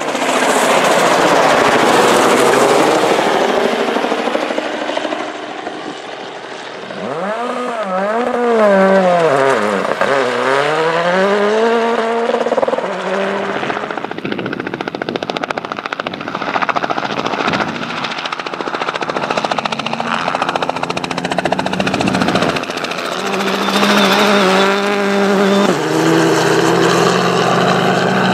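Rally cars (Citroën C3 Rally2 and Renault Clio Rally5) driven at full speed on a gravel stage, engines revving hard and dropping through quick gear changes. The first few seconds are loudest, with a wash of gravel noise.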